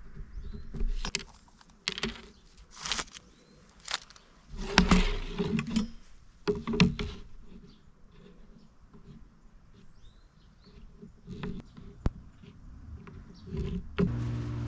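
Irregular knocks and clatter of a wooden board and tools being handled on a workbench. Near the end an electric power tool's motor starts and runs steadily.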